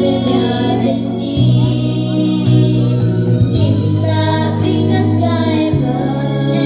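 Young girls singing a Christmas song together into microphones over an instrumental accompaniment with a bass line that steps through held notes.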